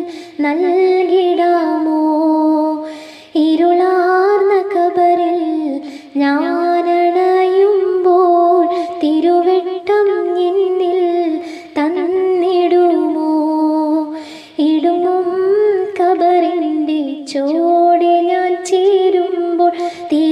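A woman singing a Malayalam madh song solo, in long held phrases with a wavering, ornamented melody and short breaths between them.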